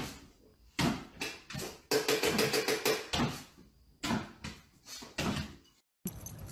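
A series of sharp knocks and light thumps from a small dog hopping up and down on a wooden kitchen floor, coming several a second in places. About two seconds in there is a brief run of rapid pitched pulses.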